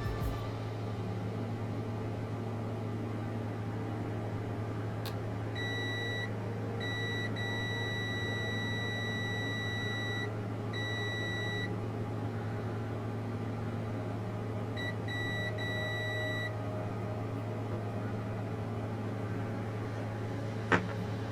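A high electronic beep tone sounding in uneven on-off stretches, some short and some held for a few seconds, over a steady electrical hum. The beeping comes in two spells, about a quarter of the way in and again past the middle, and a sharp click comes near the end.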